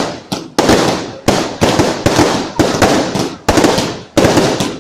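Aerial fireworks going off in a rapid series, about eight loud bangs in under five seconds. Each bang fades away before the next one hits.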